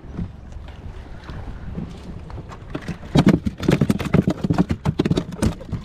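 Wind on the microphone over a small inflatable boat, then, from about three seconds in, a quick run of irregular knocks and slaps lasting about two and a half seconds.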